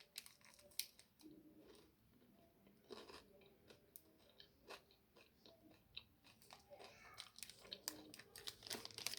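Faint chewing with small irregular crunches: a person eating a milk chocolate bar with caramel and crispy rice.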